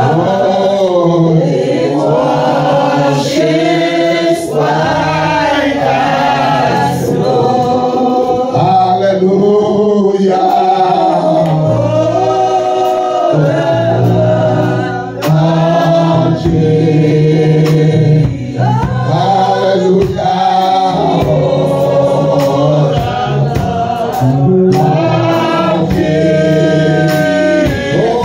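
Church congregation singing a gospel worship song together, men's and women's voices, with keyboard accompaniment holding steady low notes.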